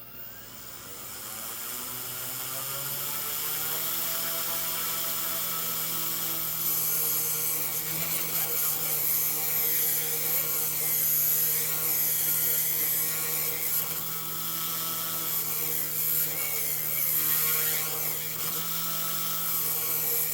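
OMP M1 radio-controlled electric helicopter spooling up over the first few seconds, then running steadily with a high whine. This is the noise that its owner treats as a fault.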